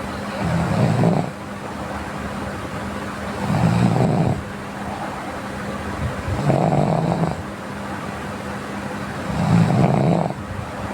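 A sleeping person snoring in a slow, regular rhythm: four snores about three seconds apart, each lasting about a second. Between them runs a steady background hum.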